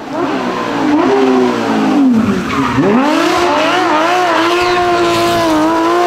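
Porsche 911 GT3 rally car's flat-six engine at high revs through a corner. The revs fall about two seconds in as it slows for the bend, then climb sharply and hold high as it accelerates out.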